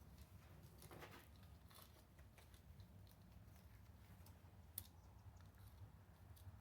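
Near silence with faint metallic clicks and rustling as a chainsaw chain and bar are handled, and one sharper click a little under five seconds in.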